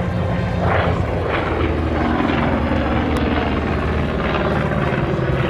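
F4U Corsair's Pratt & Whitney R-2800 radial engine droning steadily as the fighter flies a display pass, its pitch easing down slightly midway.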